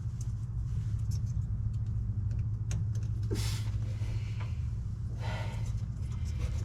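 2019 Ram 2500's diesel engine idling steadily, with a few light clicks and a short rustle about three seconds in.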